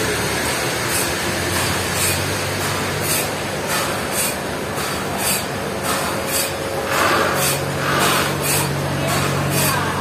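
Forklift engine running steadily as it drives with a heavy log on its forks. Short high hissing strokes repeat about twice a second over the engine.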